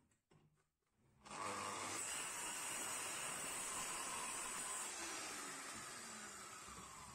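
Sliding compound miter saw starting up about a second in after a few light clicks, its motor running with a high whine as the blade cuts through a wooden board. Its pitch and loudness fall away slowly near the end as the blade winds down.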